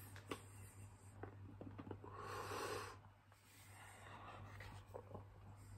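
A man breathing out hard through his mouth around a super-hot chili lollipop, the longest breath about two seconds in, with a few faint taps and handling of a tablet and a steady low hum underneath.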